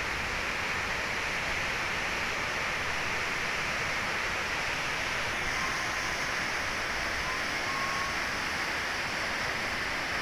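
Steady rush of floodwater in a mountain stream, a continuous, unbroken noise.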